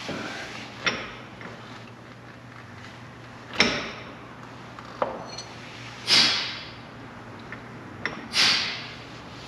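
Metal striking metal: about six separate clanks a second or two apart, the loudest three ringing briefly, as a stuck CV axle is hit to knock it out.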